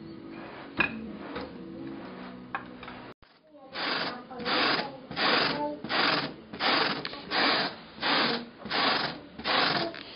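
A teasel napping card, dried teasel heads on a wooden cross-frame, is brushed over and over across freshly woven wool cloth to raise a fuzzy nap. About ten even strokes, roughly one and a half a second, start about four seconds in.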